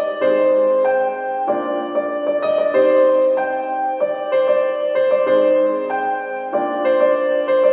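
Background music: a gentle piano melody with notes changing in a steady flowing pattern.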